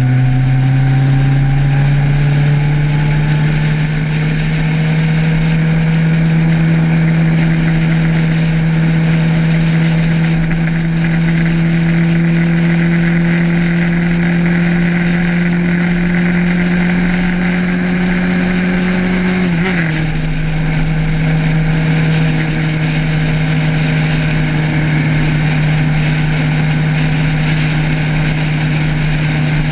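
Motorcycle engine running under way. It rises in pitch over the first couple of seconds as it accelerates, then holds a steady drone, with a sharp dip in pitch about twenty seconds in. A steady rush of wind and road noise runs underneath.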